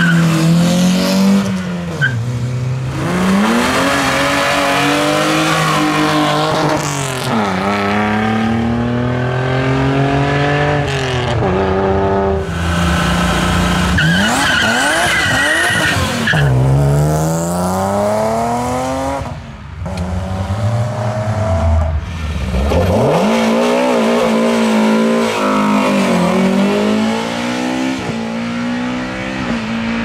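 Hillclimb race cars, among them a Mk2 Volkswagen Golf and a BMW E36, launching one after another: the engine held at high revs, then accelerating hard up through the gears, its note rising and dropping back at each upshift.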